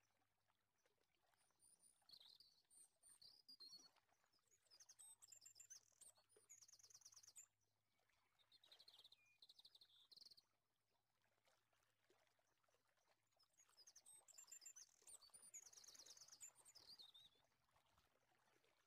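Near silence, with faint bird chirps and a few short, rapid trills now and then in the background.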